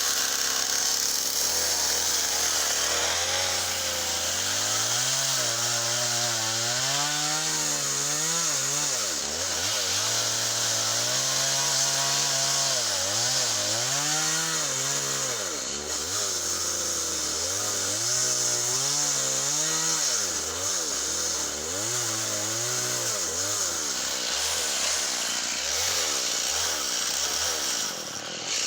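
Small chainsaw cutting softwood, its engine pitch dipping under load and climbing back again and again over the hiss of the chain.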